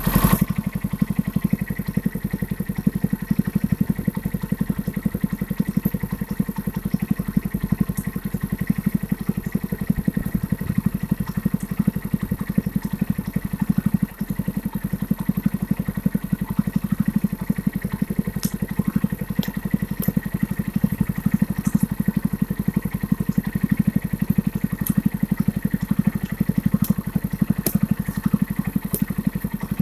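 Custom Yamaha Blaster quad's swapped-in Suzuki 500cc twin-cylinder motorcycle engine idling steadily, with an even, fast exhaust pulse.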